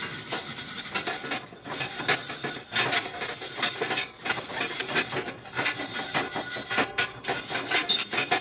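Hand steel wire brush scrubbing a fresh stick weld on thin steel exhaust pipe, bristles scraping over the metal in quick back-and-forth strokes with a few brief pauses. The weld is being cleaned of slag and spatter after welding.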